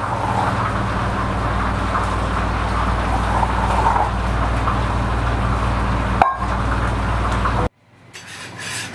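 Steady hum and rush of a restaurant kitchen's running equipment, an extractor fan and a lit gas burner, with a single sharp click about six seconds in. The noise stops abruptly near the end.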